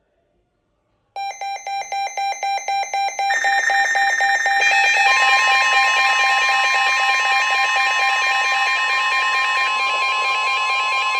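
Weather radio alert alarm going off for a severe thunderstorm warning. Fast pulsing beeps at about four a second start about a second in. More tones soon layer on, and a steady NOAA warning alarm tone joins about five seconds in, all sounding together until the end.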